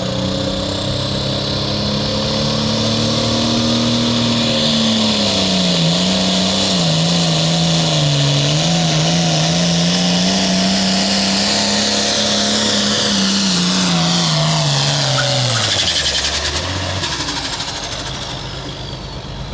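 Turbocharged International 1456 pulling tractor's diesel engine running at full power under load as it pulls the sled, its pitch dipping and recovering, with a high turbo whine over it. About thirteen seconds in, the engine winds down and the turbo whine falls away as the pull ends.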